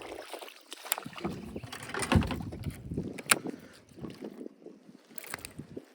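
Irregular knocks, clatter and water splashing around a kayak, the sharpest knocks about two and three seconds in.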